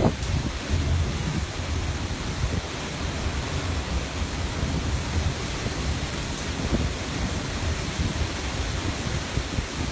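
Strong wind buffeting the microphone over the steady rush of rough, white-capped sea churning along the ship's side, with a gusty low rumble that rises and falls.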